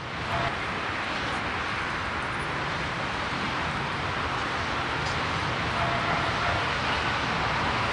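Steady rushing background noise with no rhythm, recorded on site at the cages, with a faint thin tone rising out of it for about a second just after the middle.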